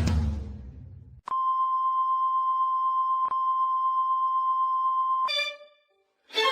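Drum music dies away, then a steady high electronic beep, one unchanging pitch, is held for about four seconds with a single click partway through. It stops abruptly, and short bowed violin notes begin near the end.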